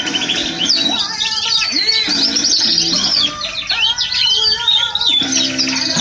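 Spanish Timbrado canary singing rapid, rolling trills over background music with guitar.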